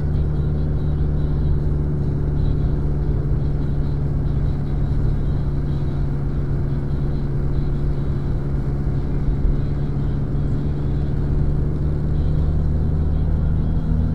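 Car engine running at a steady, even drone with tyre and road noise, heard from inside the cabin while cruising; the car is running without trouble.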